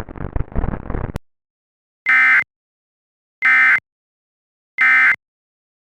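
Emergency Alert System end-of-message data bursts: three identical short, harsh digital tones about 1.3 seconds apart, the code that closes the alert. Before them a noisy sound cuts off abruptly about a second in.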